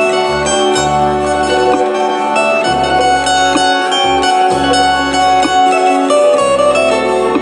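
Instrumental break of a folk-rock song played live by a band: plucked acoustic and electric guitar lines with piano over low bass notes that change about once a second.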